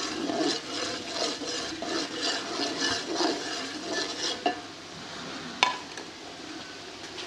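A metal ladle stirring and scraping a tomato-and-onion masala frying in oil in a large aluminium pot, in repeated strokes. After about four and a half seconds the ladle knocks against the pot twice, the second knock the loudest, and the stirring stops.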